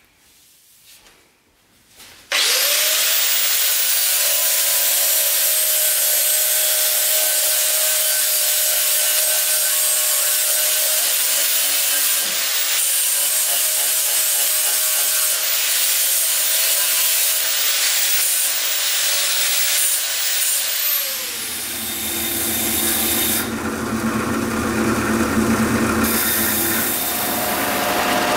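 Angle grinder with a flap disc starting about two seconds in, spinning up to a steady high whine and grinding rust off a steel knife tang. About two-thirds of the way through it is switched off and its whine winds down, and a benchtop belt sander takes over with a lower running hum.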